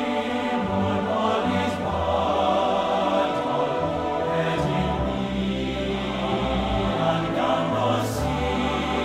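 Background music: a slow choral-style piece with long held notes.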